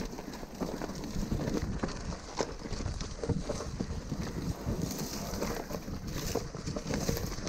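Mountain bike rolling down a rough, rocky dirt trail: tyres crunching over loose stones and dry leaves, with irregular clatter and knocks from the bike over the bumps.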